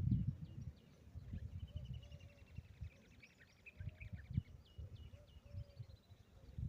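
Birds calling: rapid repeated short chirps, with a fast trill about a second and a half in and another, higher one near the end, over an uneven low rumbling noise.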